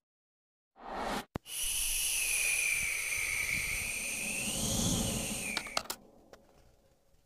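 Edited-in sound effects: a short swelling whoosh and a click, then a whistling tone over a hiss lasting about four seconds, which sags and then bends up in pitch near the end before a few sharp clicks cut it off.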